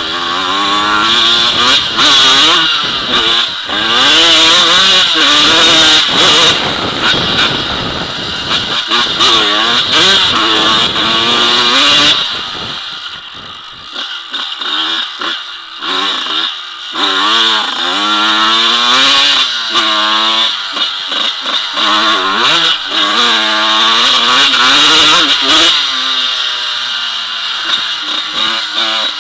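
Off-road motorcycle engine revving as it is ridden, its pitch climbing and dropping back over and over as the rider works the throttle and gears. The throttle eases off for a few seconds about halfway through, then picks up again.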